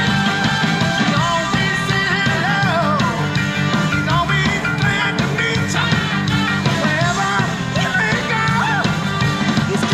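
Rock song with singing played through an Acoustic Audio AA40CW centre-channel speaker (two 4-inch woofers and a 1-inch soft dome tweeter) as a sound test. It is picked up by a GoPro microphone, which muffles it a little.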